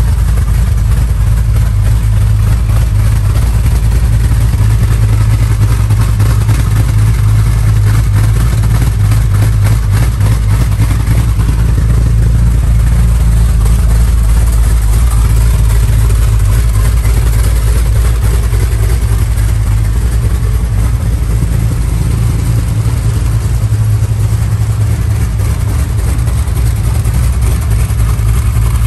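1970 Dodge Charger's 440 cubic-inch V8 idling steadily.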